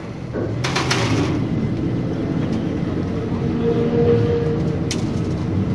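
A car engine running at a steady idle, with a short hiss about a second in.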